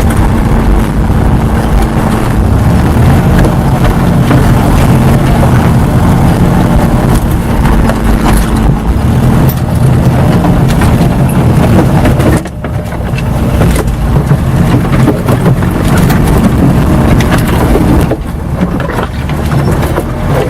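Car engine and drivetrain running under load, heard from inside the car, with a steady drone; the noise drops sharply about twelve seconds in and eases again near the end.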